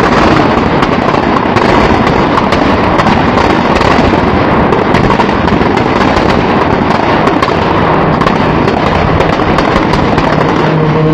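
Dense, continuous crackling of firecrackers going off in rapid succession. A steady low tone begins near the end.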